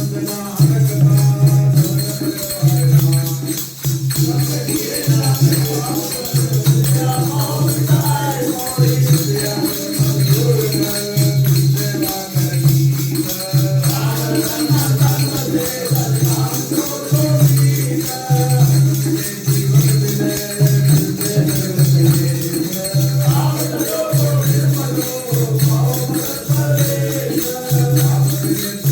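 Devotional group singing of Sikh hymns with instrumental accompaniment: a low beat about once a second and a continuous jingling rattle.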